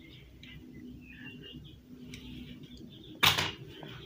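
A quiet room, then about three seconds in a short, loud rustling scrape as the cardboard box of dates and the camera are handled.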